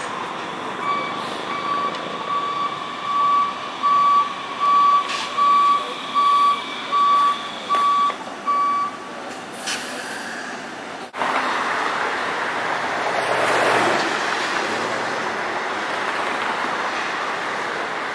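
Electronic warning beeps from a passing Muni Breda light-rail car, about one and a half beeps a second, growing louder and then fading. About eleven seconds in the sound changes abruptly to steady street traffic noise, with a car passing.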